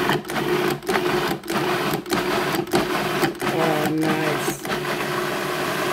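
Cuisinart food processor motor pulsed over and over, cutting out briefly about every half second, then running more steadily near the end. It is blending cooked tomatoes, onion and cashews into a creamy sauce.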